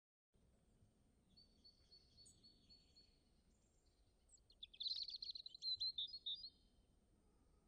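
Wild birds calling: a run of high, thin repeated notes starting about a second and a half in, then a louder burst of rapid chirps about five seconds in, over faint outdoor background noise.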